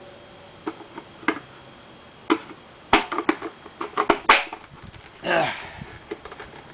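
Irregular plastic clicks and knocks as a vacuum cleaner's filter is forced back into its housing, a stiff, hard fit, with a cluster of rattling clicks in the middle and a short vocal grunt about five seconds in.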